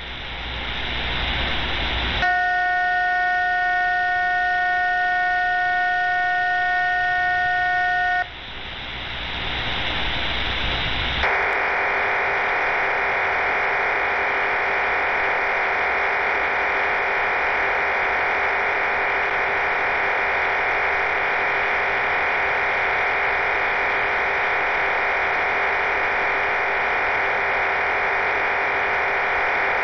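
HM01 Cuban numbers station's digital transmission on shortwave, heard through an SDR receiver. A couple of seconds of static, then a chord of several steady tones held for about six seconds, static again, and from about eleven seconds in a dense, steady rushing data signal: the station's RDFT digital data burst following its voice numbers.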